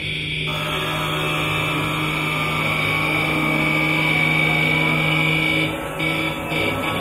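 Experimental drone soundscape: a low steady hum and a high held tone over a noisy wash, the low hum dropping out near the end.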